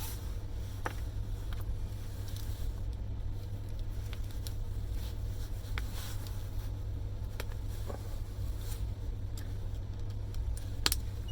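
Scattered light clicks and taps of small plastic and metal parts as a miniature circuit breaker is taken apart by hand, with a sharper click near the end, over a steady low hum.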